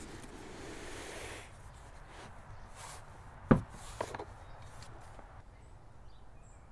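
Handling noises around a foam-lined plastic toolbox: a soft rubbing rustle for the first second and a half, then a single sharp knock about three and a half seconds in, followed by a couple of fainter taps.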